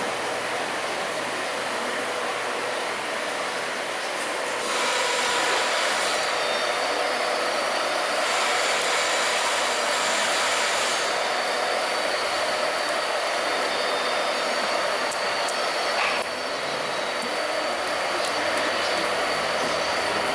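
Steady mechanical running noise with a faint high whine, growing louder about five seconds in.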